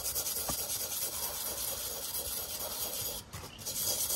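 A mild wire brush scrubbing a corroded caliper bracket wet with brake cleaner in rapid back-and-forth strokes, breaking off briefly a little after three seconds in. The corrosion is coming off the original plating.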